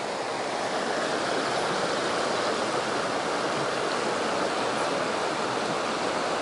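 Creek water rushing steadily over a rocky stretch of fast current close by.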